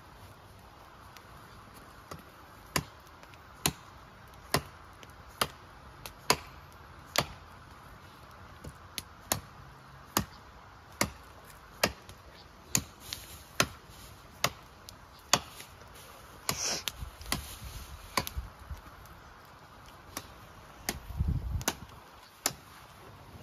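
Blade chopping: a steady run of about twenty sharp strikes, roughly one a second, with a brief low scuffing near the end.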